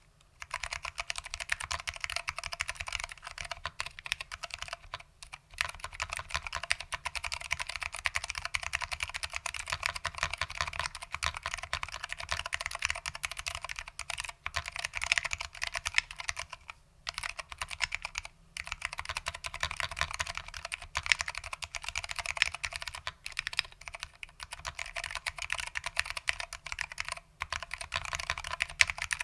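Fast, continuous typing on a Lunar AEK 65 custom keyboard with foam-damped SKCM Orange Alps switches, a dense run of keystroke clicks broken by a few short pauses.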